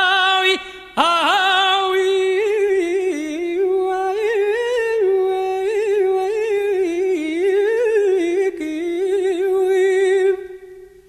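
A male singer's unaccompanied closing melisma: a short held note with wide vibrato, a brief break about a second in, then one long, winding phrase with no words heard, which stops about a second before the end.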